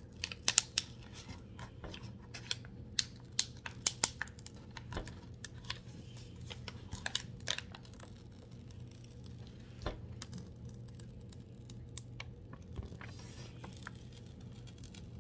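Crackling and clicking of the clear plastic film on a diamond painting canvas as it is peeled back and handled, a quick run of sharp clicks in the first half and fewer, scattered ones after.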